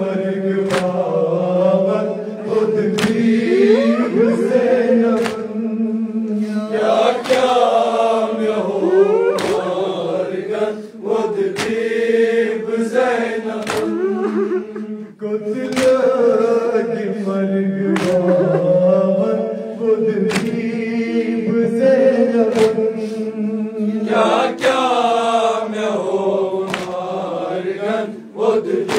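A group of men chanting a Kashmiri noha, a Shia lament, in unison. Sharp hand strikes of matam (chest-beating) land together about once a second, keeping time with the chant.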